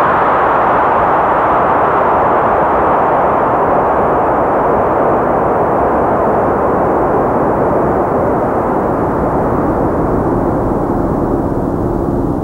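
Experimental electronic soundtrack: a steady wash of noise that slowly grows darker, with a low held tone coming in about ten seconds in.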